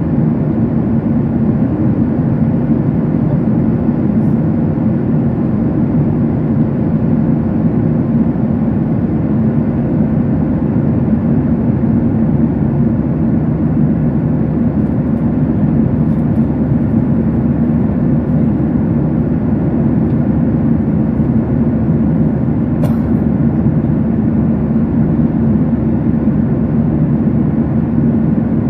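Steady roar of a jet airliner in cruise heard from inside the passenger cabin: engine and airflow noise, even and unchanging, with a faint click about three quarters of the way through.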